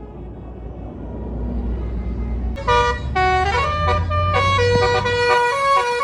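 A tour bus approaches with its engine rumble growing louder, then about two and a half seconds in its Basuri telolet horn starts playing a quick melody of stepped notes.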